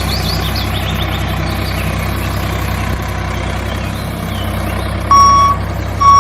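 Truck engine running steadily, with a reversing alarm beeping twice near the end.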